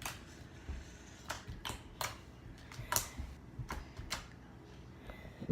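Slime being poked and squeezed by hand, giving scattered sharp clicks and pops from its air bubbles, about eight in a few seconds.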